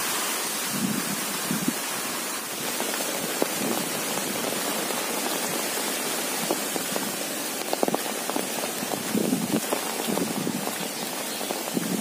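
Steady rain pattering on an umbrella, with scattered soft thuds of footsteps on a wet dirt path, more of them toward the end.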